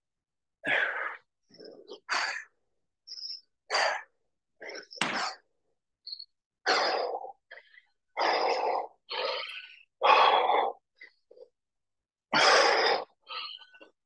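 A man breathing hard during push-ups: short, forceful exhalations, about one a second, with short gaps between.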